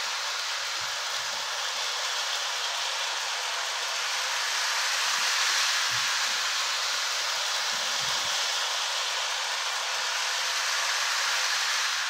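Lionel Scout O-gauge toy steam freight train running around a Fastrack oval, with a steady hiss from its locomotive's steam sound effects.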